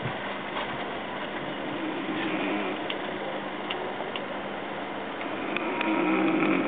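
Steady running noise inside an air-conditioned sleeper carriage of a train rolling slowly through a station, with scattered light ticks and clicks. The sound swells louder for about a second near the end.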